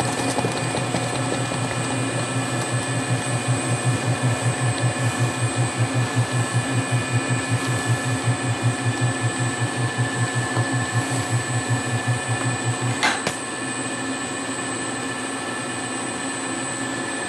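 Gelato batch freezer running while it extrudes gelato: a steady machine hum with a low rhythmic throb of about three beats a second, which stops with a click about 13 seconds in, leaving a steady hum.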